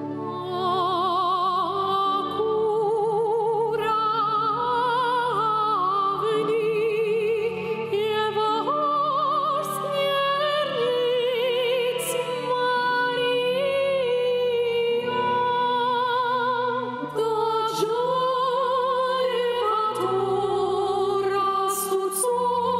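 Two women singing in a classical, operatic style with wide vibrato, over a soft instrumental backing.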